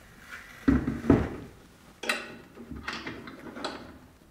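Electric linear actuator being handled and fitted into its mounting bracket: a few sharp knocks and clunks, the loudest two about a second in, another about two seconds in and lighter ones after, with rubbing and rustling between.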